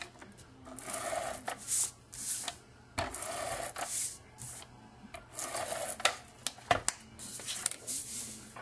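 Pink adhesive tape runner rolled across cardstock in several short rasping strokes, mixed with stiff cardstock sheets rustling and sliding on a cutting mat, and a few sharp taps.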